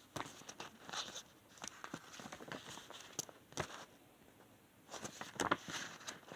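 Paper pages of a CD booklet being turned and handled: irregular rustles and small sharp clicks, busiest about five seconds in.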